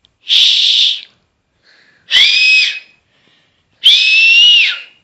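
Loud four-finger whistle, made with the tongue folded back, blown three times. The first blast is mostly breathy air; the second and third give a clear high tone, and the last is the longest and drops in pitch as it ends.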